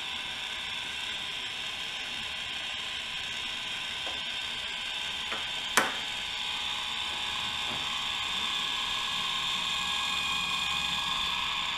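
Bulldog valve robot's geared electric motor running steadily, slowly turning a 1/2-inch brass ball valve's handle toward closed. It makes an even mechanical whine with one sharp click about six seconds in, getting slightly louder toward the end.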